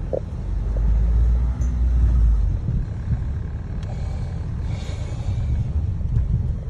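Car being driven along a street, heard from inside the cabin: a steady low rumble of engine and tyres, heaviest in the first two to three seconds.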